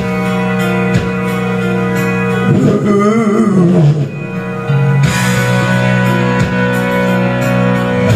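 Karaoke backing track of a rock song with guitar, played loud through the room's speakers. Between about two and a half and four seconds in, a wavering, falling vocal line sounds over it.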